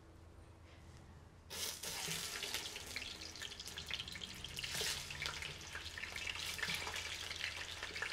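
Chicken thighs and drumsticks going into hot oil in a clay cazuela, bursting into a crackling sizzle about a second and a half in and frying steadily from then on.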